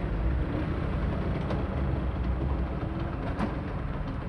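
City street traffic noise: a steady low engine rumble from motor vehicles, with a couple of faint clicks.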